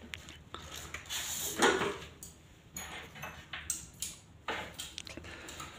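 Faint handling noise: a few scattered light clicks and rustles as a hand moves over a bare diesel cylinder head, with a short breathy rustle about a second and a half in.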